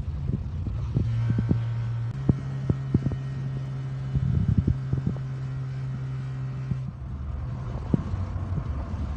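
Van engine running while driving: a steady low drone that rises a step about two seconds in and drops back near the end, with scattered short knocks and rattles over it.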